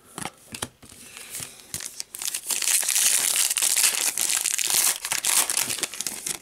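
Wrapper of a 2013 Panini Crown Royale card pack being torn open and crinkled by hand: light rustles and clicks at first, then steady crinkling from about two seconds in.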